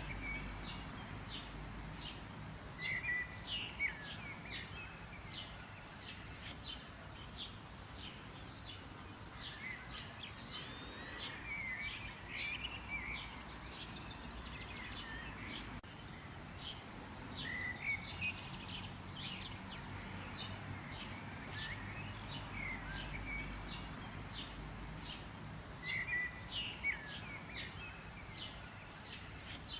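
Several songbirds singing and chirping, with many short high chirps and warbling phrases that come in clusters every few seconds, over a faint steady low background noise.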